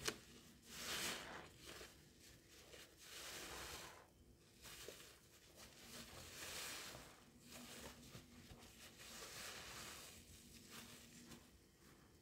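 A soap-soaked sponge squeezed by hand in a tub of sudsy water: wet squelching and crackling foam, coming in swells every two to three seconds. A sharp click right at the start.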